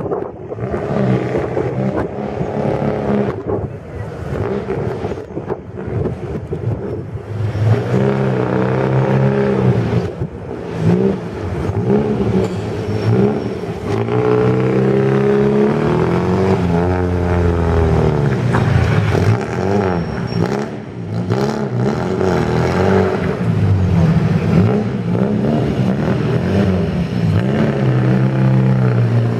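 Vintage car engine revving up and down as it manoeuvres at low speed, its pitch rising and falling again and again. Fainter for the first several seconds, then louder and close by.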